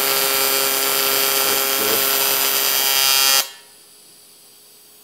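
AC TIG (gas tungsten arc) welding arc on 1/8-inch aluminium, a loud, steady electrical buzz that cuts off abruptly about three and a half seconds in as the arc is stopped, leaving only a faint hum.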